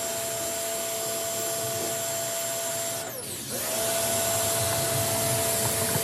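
Ryobi 1600 PSI electric pressure washer running, its motor and pump whining steadily under the hiss of the water jet blasting concrete. About three seconds in, the whine drops sharply in pitch and comes back up a moment later.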